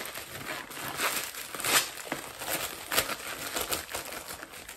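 Plastic packaging crinkling and tearing as it is pulled open by hand, an irregular run of rustles with sharp crackles, loudest nearly two seconds in and again about three seconds in.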